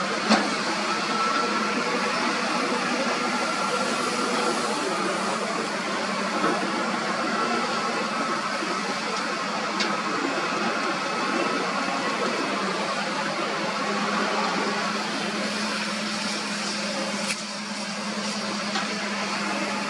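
Heavy diesel machinery running steadily: a Hyundai dump truck's engine and hydraulic hoist holding the bed raised as it tips out soil, with a bulldozer working nearby. A few sharp knocks sound, one right at the start and one late on.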